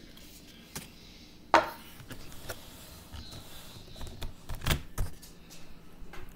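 A few knocks and thumps from handling close to the microphone: one sharp knock about one and a half seconds in is the loudest, with a cluster of smaller knocks and thumps near the end.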